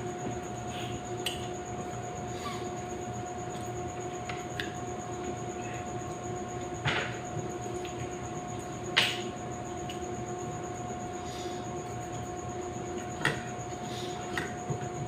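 Eating sounds of someone eating boiled cassava: scattered short clicks and clinks, the loudest about nine seconds in, over a steady hum.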